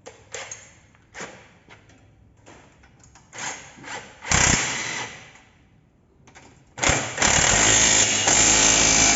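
Impact wrench hammering as it tightens the ball joint bolts on a lower control arm. It runs in two bursts, a short one about four seconds in and a longer one from about seven seconds on, after a few light clicks of tool handling.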